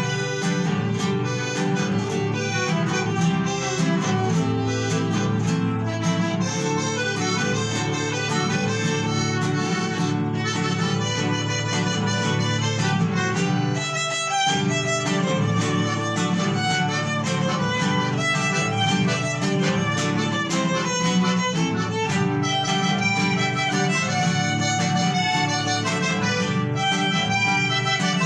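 Live instrumental ensemble music led by violins over strummed guitars, with a brief break about halfway through before the playing resumes.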